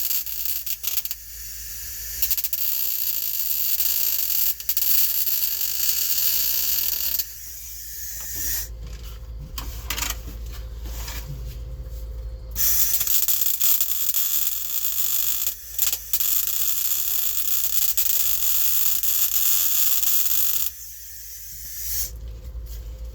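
Welder laying beads on the sheet-steel floor pan to fill a gap: two long spells of hissing, crackling arc noise, about seven and eight seconds long. Between them is a pause of a few seconds with scattered clicks.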